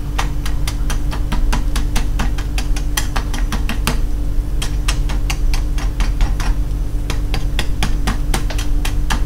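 A wooden spatula tapping and scraping crispy fried chicken wings on a wire rack, giving rapid, irregular crunchy clicks, about five or six a second, over a steady low hum.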